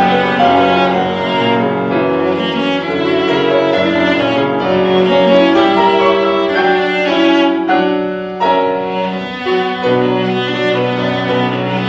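Cello and Steinway grand piano playing a classical piece together: the cello bows a melody over the piano accompaniment, and a low held note comes in near the end.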